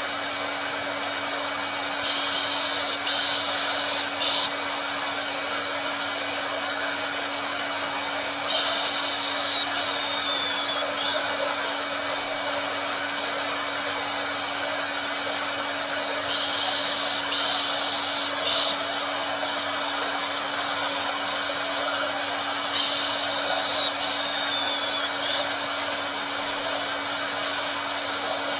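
Hair dryer running steadily: a continuous whooshing hiss over a low steady hum. About every seven seconds a louder, higher-pitched hiss comes in for two or three seconds, four times in all.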